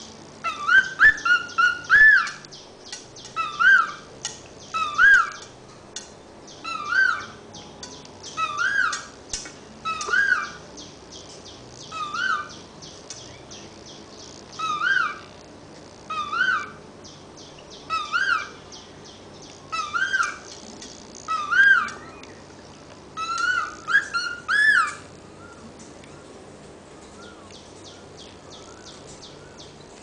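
Cockatiel whistling a short repeated note that rises and falls in pitch, about one a second, with quick runs of several notes near the start and again just before the whistling stops, about five seconds before the end. Only a few faint, soft chirps follow.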